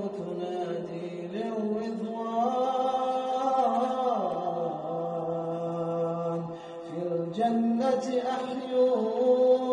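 Male nasheed singer's voice drawing out long, held melismatic notes that step up and down in pitch.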